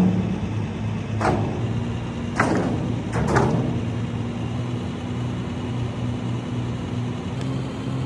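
A motor or engine running steadily with a low pulsing hum, and three sharp knocks or clatters about a second, two and a half seconds and three and a half seconds in.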